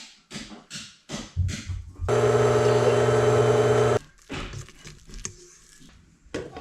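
Small electric kitchen appliance motor running steadily for about two seconds and then switched off abruptly, as when mixing the treat dough. Shorter knocks and rustles come before and after it.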